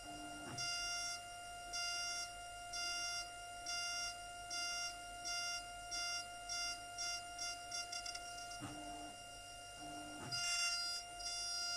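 A SycoTec KaVo high-speed milling spindle whines steadily at a high pitch while its end mill cuts aluminium. The cutting sounds as short hissing bursts about once a second, which come shorter and quicker about two-thirds of the way through, with a few brief lower hums near the start and near the end.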